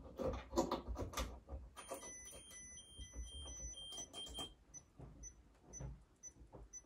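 Electrician's multifunction tester beeping while it runs a live earth loop impedance test: a run of electronic tones at several pitches about two seconds in, then short regular pips about two a second. A few handling clicks from the test leads come first.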